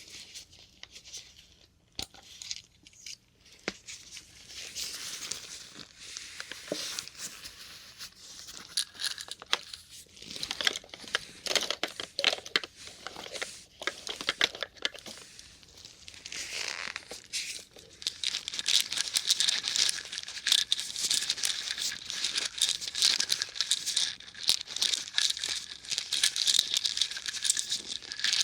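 A pile of small plastic syringe caps being handled and stirred by hand, giving a dense, irregular crackle of light plastic clicks and rustling. It grows busier and louder about two-thirds of the way in.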